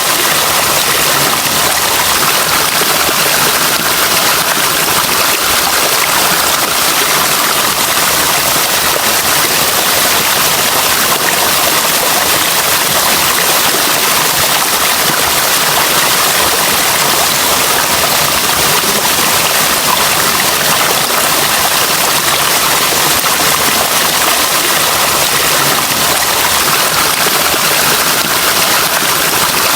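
Flowing water running steadily: a loud, even hiss with no pauses or changes.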